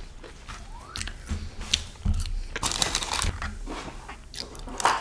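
Crunchy bites into fried chicken breading and chewing close to the microphone, with a cluster of sharp crackles about three seconds in.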